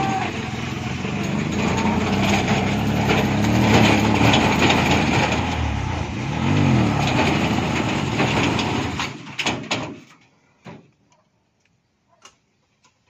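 Petrol engine of a three-wheeled ba gác cargo truck running, revving up and back down once about six and a half seconds in, then stopping about ten seconds in, leaving only a few faint clicks.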